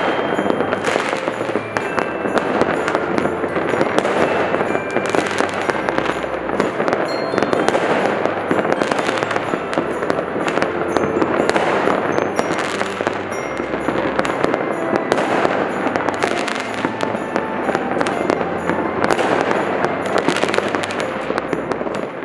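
Many fireworks and firecrackers going off at once: a dense, continuous crackle with frequent sharper bangs, over instrumental background music.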